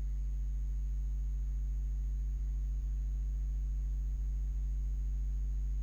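Steady low electrical hum with several evenly stacked overtones and a faint thin high whine above it, the constant background of the recording. A few faint soft ticks sit in it.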